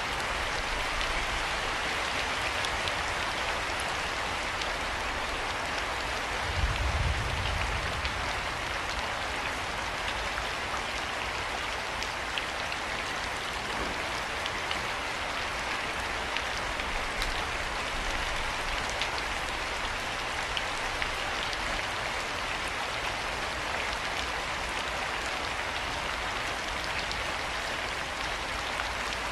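Steady rain falling: an even hiss with scattered sharper drop ticks. A brief low rumble about seven seconds in.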